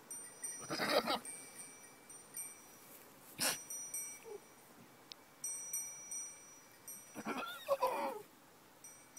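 Goats bleating: a call about a second in, a short one a little past three seconds, and a longer wavering one around seven to eight seconds. Faint high ringing tones come and go between the calls.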